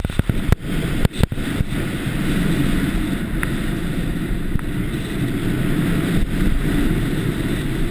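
Wind rushing over a GoPro Hero's microphone and a snowboard sliding and scraping over packed snow during a downhill run, as a loud, steady low rush. A few sharp knocks come in the first second and a half.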